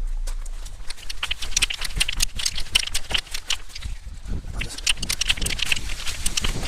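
Gravel crunching: a dense, irregular run of crisp crunches and clicks.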